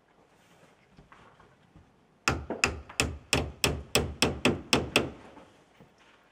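A roofer's shingle hatchet hammering a larch roof shingle down onto a wooden batten: about a dozen sharp, evenly spaced blows, roughly three a second, starting a little over two seconds in and stopping about five seconds in.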